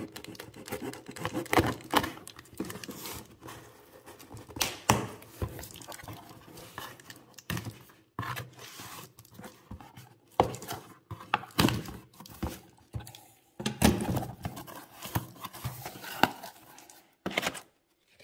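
Cardboard shipping box being opened by hand: a blade slitting the packing tape, then the flaps pulled open, making irregular scraping, tearing and knocking against the cardboard.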